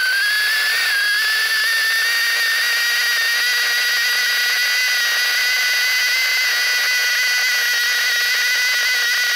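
A steady high-pitched whine with a fainter lower hum, left after the engine is shut off. Its pitch dips at the start, then settles and holds.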